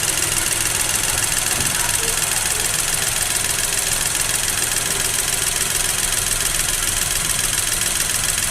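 Engine idling steadily, running evenly with no change in speed.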